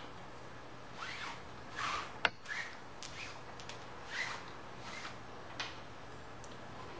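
Hands working a fender washer onto the knotted end of an elastic bungee cord: scattered short rustles and rubs of cord and washer, with one sharp click a little over two seconds in.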